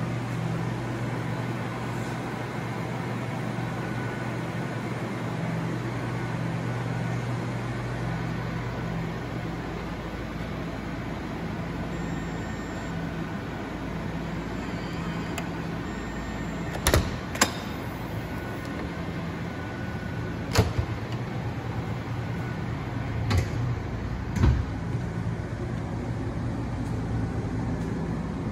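Steady mechanical hum throughout. Near the middle there are a couple of faint short high beeps as the motorhome's entry-door keypad lock is used. Then come a few sharp clicks and knocks of the door latch and door being worked, the last of them a little over two thirds of the way through.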